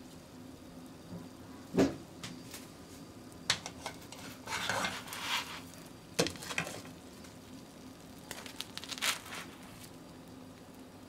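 Black plastic slotted turner scraping and tapping against a nonstick frying pan as it slides under a thin fried egg, with sharp knocks about 2 s and 6 s in and bursts of scraping in between and again near the end.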